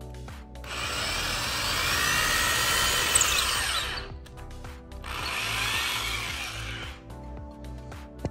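A power tool running in two bursts, one of about three seconds and then one of about two, its pitch sliding up and down as it works, over background music.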